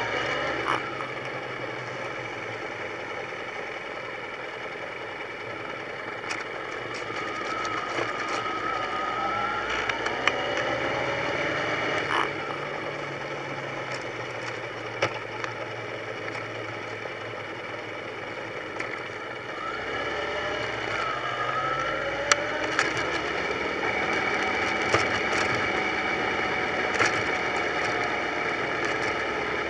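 Motorcycle engine running while riding, its pitch rising and falling with acceleration and gear changes, over steady rushing noise, with a few sharp knocks.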